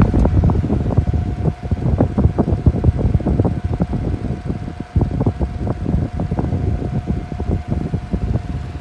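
Beyond Breeze 12-inch oscillating table fan running, its airflow buffeting the microphone in uneven gusts, with a thin steady whine over the rush that fades out near the end.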